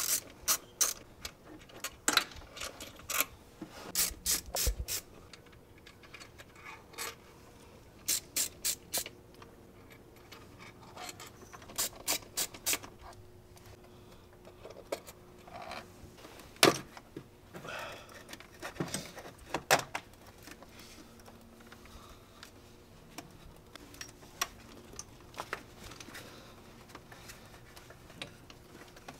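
Socket ratchet clicking in short quick runs as the throttle body bolts are backed out, with scattered knocks and rubbing of the metal parts and tools being handled.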